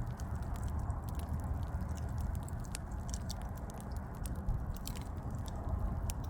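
Burning wood fire crackling: a steady low rumble of the flames with many small, irregular pops and snaps from the logs.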